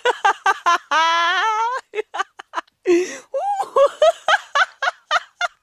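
A high-pitched voice giving a quick run of short bursts, with one longer call about a second in that rises slightly in pitch.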